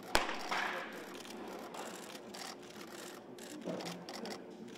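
A single sharp pop of a pitched baseball smacking into a catcher's mitt just after the start, followed by low background noise.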